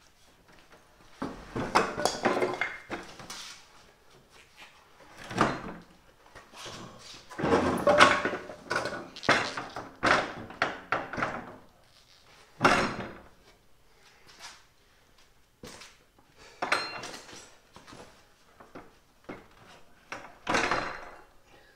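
Irregular thunks, knocks and scrapes from a jointer's steel stand being shifted and set onto a mobile base over an OSB board, with a wooden 2x4 knocking about. The loudest clusters come about two, eight, ten and twelve seconds in, and again near the end.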